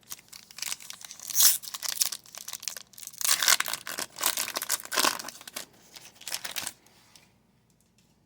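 Trading-card pack wrapper being torn open and crinkled in irregular crackling bursts, stopping about seven seconds in.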